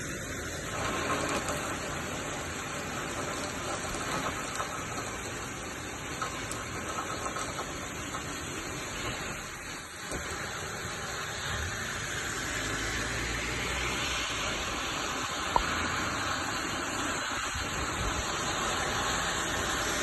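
Heavy rain and strong wind in a storm, a steady hiss throughout. A low rumble builds through the second half, and there is a single sharp click about three-quarters of the way in.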